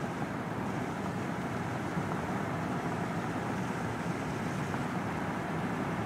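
Steady road noise of a car driving: an even drone with no changes.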